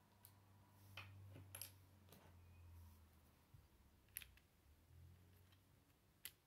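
Faint clicks of plastic Lego bricks being handled and pressed together on a model truck, several sharp ticks spaced irregularly.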